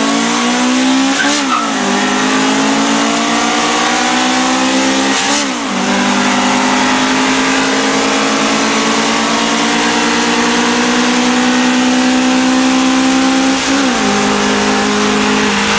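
Honda Civic VTi B16 four-cylinder engines with aftermarket intakes and end-pipe exhausts accelerating hard from a rolling start. The engine note climbs steadily through the gears, broken by three upshifts: about a second in, about five seconds in and near the end.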